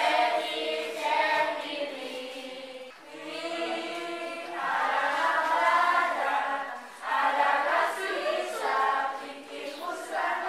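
A group of children singing a song together, in sustained phrases with short breaks between lines.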